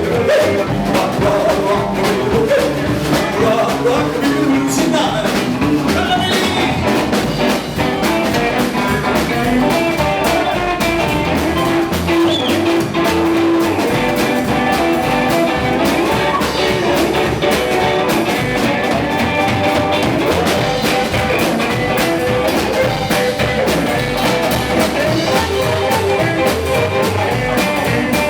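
Live rock and roll band playing an up-tempo dance number, guitar-led over a steady drum beat.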